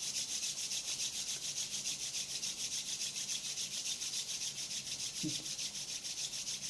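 A man's palms rubbed briskly together, a steady rhythmic swish of skin on skin, several strokes a second. The hands are rubbed to warm them.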